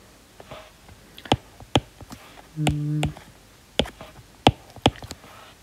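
A stylus tapping on a tablet's touchscreen: about six sharp, irregular taps, as a pen colour is picked in the note app. A brief, steady low hum comes about halfway through.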